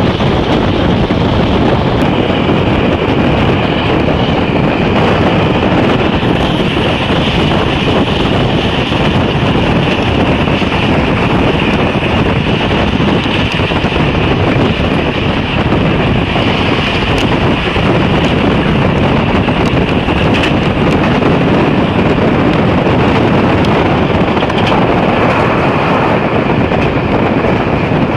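Diesel-hauled passenger train running at speed, heard from an open carriage window: a steady rumble of the running gear mixed with a rush of wind on the microphone.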